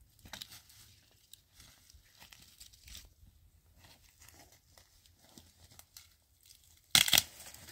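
Dry sticks and branches crackling and snapping over dry fallen leaves as firewood is gathered and stacked. Light scattered crackles run throughout, with a loud, sharp double crack of wood near the end.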